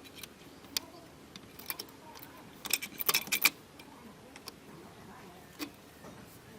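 Light metallic clinks and rattles of small metal objects being handled, with a quick cluster of them about three seconds in.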